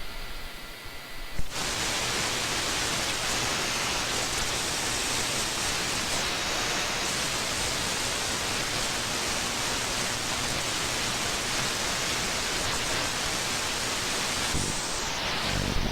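Shortwave radio static from an RTL-SDR receiver's audio in SDR#: a steady hiss that, after a click about a second and a half in, turns louder and brighter. Near the end it narrows again.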